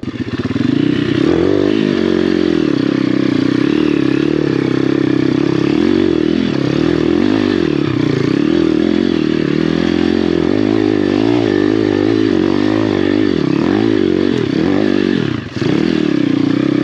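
Apollo RFZ pit bike's swapped-in 150cc single-cylinder four-stroke engine running hard under load on a steep hill climb, heard from on the bike, its pitch wavering with the throttle. It drops briefly about fifteen seconds in, then picks up again.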